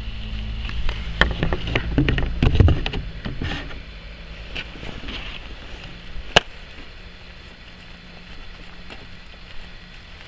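Wind rumbling on the microphone, with a cluster of rustling knocks in the first few seconds and one sharp click a little past the middle. A faint steady hum remains afterwards.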